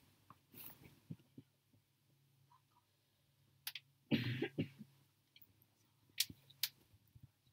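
A person coughing once, briefly, about four seconds in, over a steady low hum and a few faint scattered clicks.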